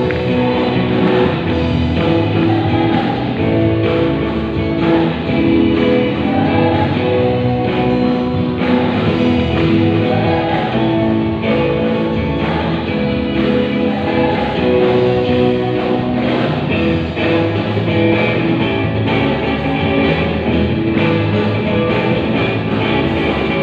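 Youth choir singing a gospel song over keyboard and band accompaniment, with long held notes.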